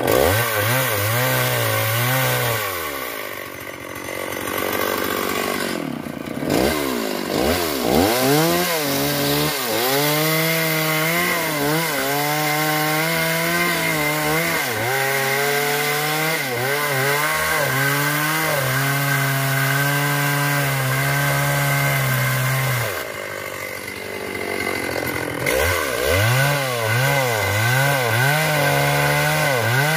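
STIHL MS381 two-stroke chainsaw cutting through a fallen sengon log at high throttle, its pitch wavering as the chain loads up in the wood and holding steady at a high pitch for a long stretch in the middle. It eases off briefly twice, a few seconds in and again about three quarters of the way through, then revs back up to cut.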